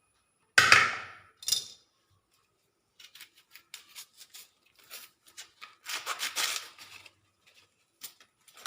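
Kitchen items being handled: a loud sharp clatter about half a second in and a smaller one just after, then a run of small clicks and rustles, with a louder stretch of rustling near the end, as the curry's roasting ingredients are set out.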